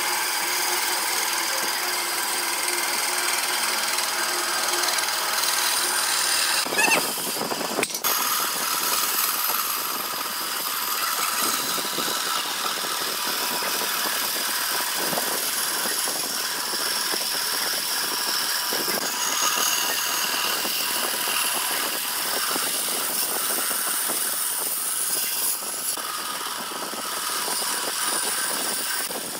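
Bandsaw running with a steady motor whine while its blade cuts a thick wooden board along curved lines; a brief louder rasp about seven seconds in.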